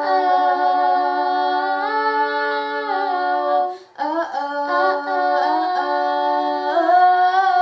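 Two children singing a cappella in wordless two-part harmony, holding long notes in two phrases with a short breath break about four seconds in.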